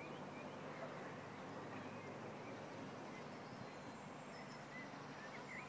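Quiet open-air background: a steady low hiss with faint, scattered bird chirps.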